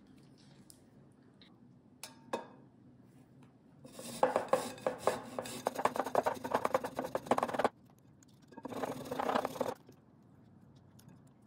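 Fresh ginger rubbed quickly back and forth on a fine metal rasp grater, making rapid scraping strokes. The grating comes in two bouts: the first lasts about four seconds, and a shorter one follows after a brief pause. Two light taps come a couple of seconds before the grating.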